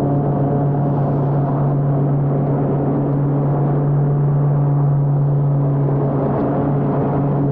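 Exmark Commercial 30 walk-behind mower's engine running steadily at full speed while mowing grass, a constant hum over the rush of the blade and clippings.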